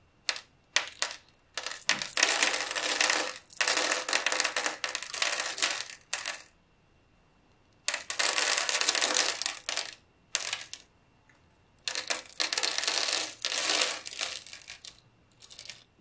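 Small magnetic balls clicking together, with a few single snaps, then four runs of dense clattering, each lasting one to two and a half seconds.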